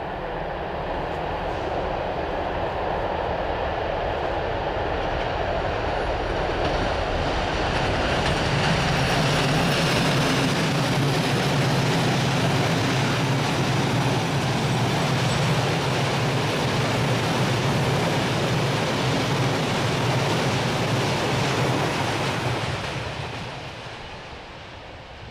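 EMD diesel-electric locomotive hauling a freight train of tank wagons passes by. The steady engine drone and rolling wheel noise build up, hold loud, then fade away in the last few seconds as the train recedes.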